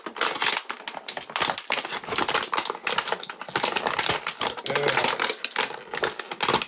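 Stiff clear plastic action-figure packaging crackling and clicking in quick, irregular bursts as it is handled and pried open.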